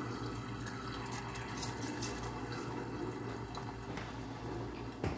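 Seasoning shaken from a handheld spice container over raw cod fillets: a quick, crisp rattle for about the first two seconds. A steady low hum lies underneath, and a single knock comes near the end.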